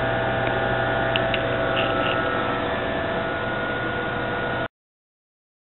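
Steady electrical hum with several held whining tones from the running IMSAI 8080 computer and its Shugart 8-inch floppy drives, with a few faint ticks about a second in. The sound cuts off abruptly to dead silence a second before the end.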